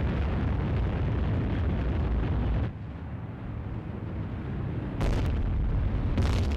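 Deep, noisy rumbling roar, heaviest in the lows. It drops off sharply about two and a half seconds in, then surges back twice with a brighter hiss near the end.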